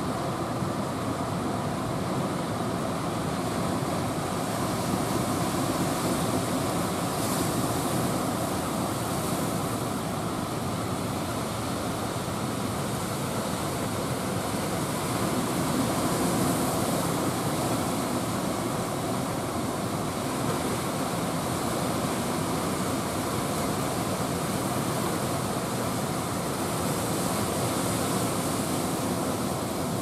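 Heavy surf: a steady roar of sea with waves breaking, swelling louder every several seconds.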